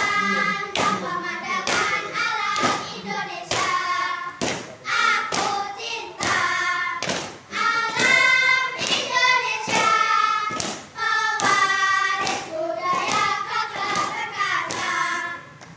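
Children's voices chanting a yel-yel scout cheer in unison to a sung tune, with regular thuds about once a second keeping the beat. The chant stops near the end.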